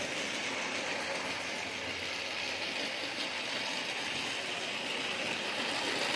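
Toy train running around its track: the small motor and gears whirring steadily as it circles.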